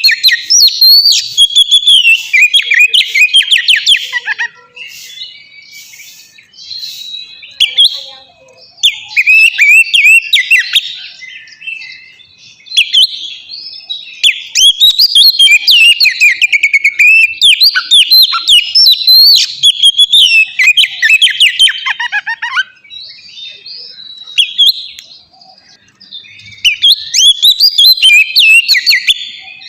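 Oriental magpie-robin (kacer) singing loudly. Its song comes in long phrases of rapid, varied whistled notes that sweep up and down, broken by short quieter pauses.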